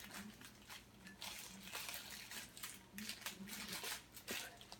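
Faint crinkling and tearing of packaging as a Funko Mystery Minis blind box is opened and the figure's plastic bag is torn open, in many short irregular rustles.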